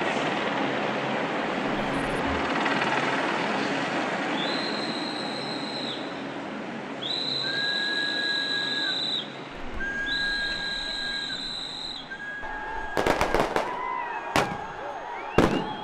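Protest crowd din, with a whistle blown in three long, steady blasts. In the last few seconds a handful of sharp bangs go off, and these are the loudest sounds.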